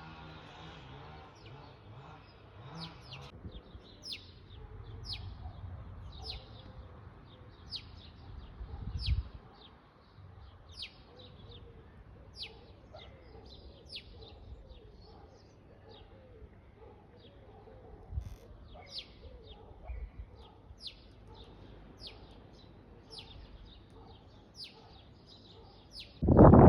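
A small songbird chirping over and over, short high descending chirps about once or twice a second, against a faint low rumble. A loud, noisy sound starts abruptly just before the end.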